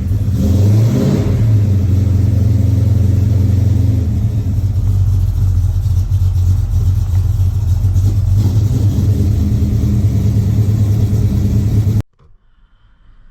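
Ford 347 stroker V8 revving briefly about a second in, then running steadily. The sound cuts off suddenly near the end.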